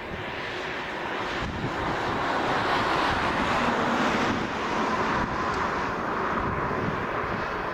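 Vickers VC10's four Rolls-Royce Conway jet engines at take-off power as the aircraft lifts off and climbs away. The jet noise grows louder to a peak about three to four seconds in, then eases slightly, with a steady whine coming in about halfway.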